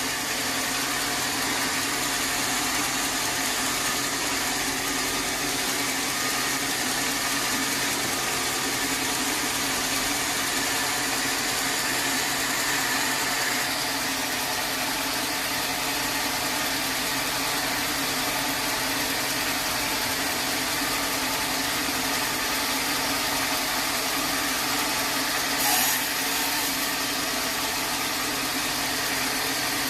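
Sawmill machinery running steadily with a constant hum and hiss, and one brief sharp knock about 26 seconds in.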